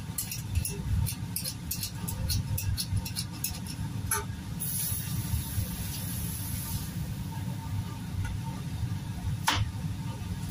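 Hand peeler scraping skin off a vegetable in quick strokes, about three a second, then a tap running briefly as it is rinsed, and a couple of sharp knife knocks on a cutting board near the end, over a steady low rumble.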